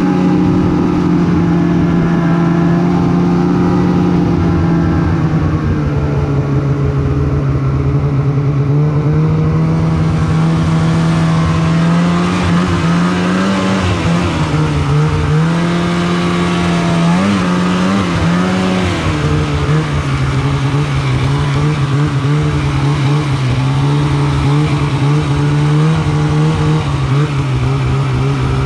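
Polaris Pro RMK 800 snowmobile's two-stroke twin engine running under way at a steady pitch, which dips and rises several times with the throttle in the middle before settling a little lower. A steady hiss joins above the engine about a third of the way in.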